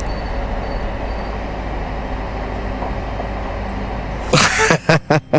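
BMW R1250GSA boxer-twin engine running steadily under wind and road rush while riding. About four seconds in, a few sudden loud bursts of noise break in.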